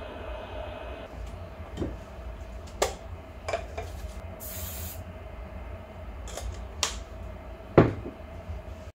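Aerosol can of Aqua Net hair spray giving one short hissing spray onto a 3D printer's glass bed, coating it so prints will stick. Several sharp knocks and clicks of handling come before and after it, the loudest near the end, over a steady hum.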